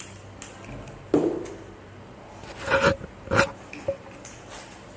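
A few short clicks and scrapes, about half a second to a second apart, from hands working a scooter's handlebar brake lever and its cable.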